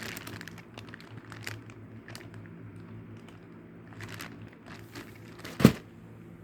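Plastic packaging crinkling in short scattered crackles as items are handled, with one sharp knock about five and a half seconds in.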